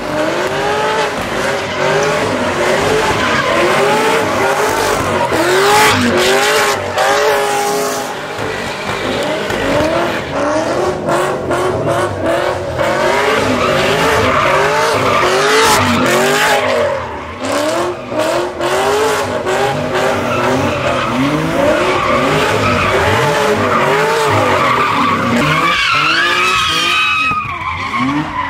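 Cars doing donuts: engines revving up and down over and over in quick rising and falling swells, with tires screeching and skidding on the pavement.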